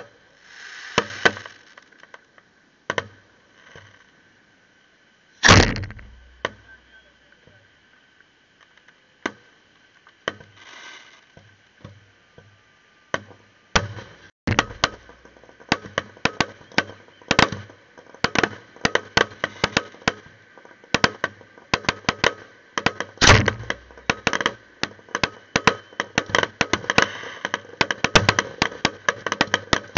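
Fireworks display: scattered aerial shells bursting with sharp bangs, three of them loud booms with a low rumbling tail. From about halfway the bangs give way to rapid, continuous crackling of many small reports.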